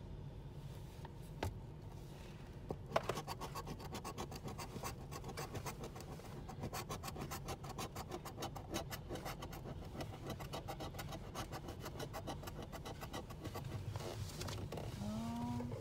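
Scratch-off lottery ticket being scratched with a small handheld scratcher tool: rapid scraping strokes over the ticket's coating, many a second, from about three seconds in.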